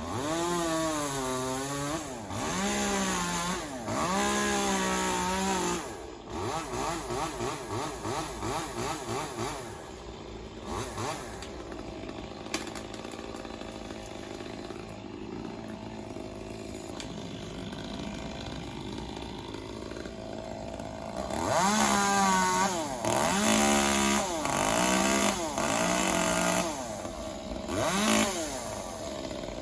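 Chainsaw revving up and down in repeated bursts, as when cutting through a tree. It settles to a lower, steadier running for about ten seconds in the middle, then revs in a series of bursts again near the end.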